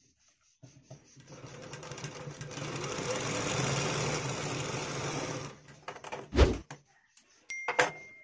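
Industrial sewing machine stitching, running up to speed within a second and running steadily for about four seconds before stopping. Two sharp loud knocks follow, with a thin high tone near the end.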